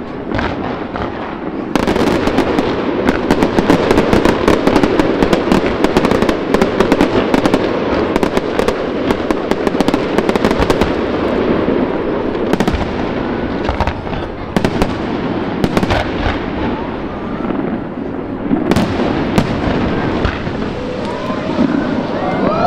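Fireworks display: aerial shells bursting overhead in a dense run of sharp bangs and crackles, growing much louder about two seconds in.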